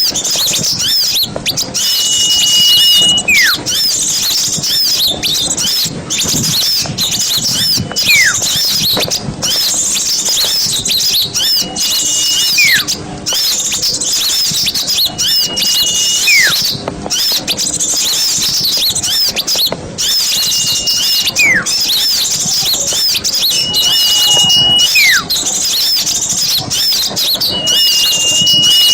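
Small songbirds twittering and chirping in a dense, high-pitched stream. Every four seconds or so comes a call made of a steady high whistle held for about a second, then a quick falling whistle.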